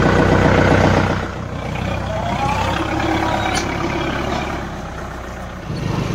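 Kubota MU4501 tractor's diesel engine running steadily just after being started with the key. The sound drops a little about a second in and changes again near the end.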